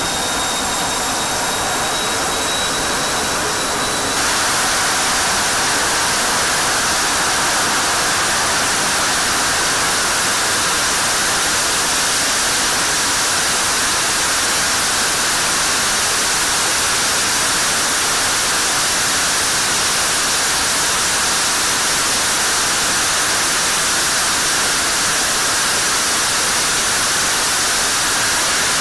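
General Electric F110-GE-100 afterburning turbofan running on a test stand in a hush-house test cell. It first runs with a high whine over its roar. About four seconds in it steps up to a louder, steady roar with the whine gone, with the afterburner lit.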